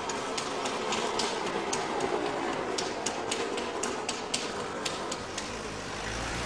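Irregular sharp clicks, two to four a second, over a steady background murmur; the clicks stop about five seconds in.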